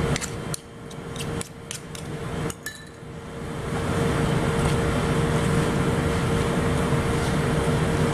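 Metal spoons clinking and scraping against a stainless steel mixing bowl while a zucchini pancake batter is stirred, with a quick run of sharp clicks in the first three seconds. About three and a half seconds in, a steady rushing noise with a constant low hum sets in and holds.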